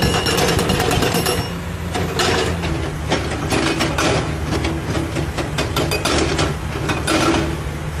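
Hydraulic rock breaker on a Komatsu PC200 excavator hammering rock, a rapid, continuous run of impacts.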